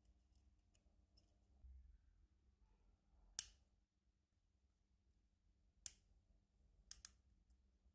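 Small sharp metallic clicks of brass oil-lamp burner parts handled and fitted together as the wick-adjustment knob's spindle is set into the burner. One click a little over three seconds in is the loudest, another comes near six seconds, and a quick double click follows about a second later; otherwise very quiet.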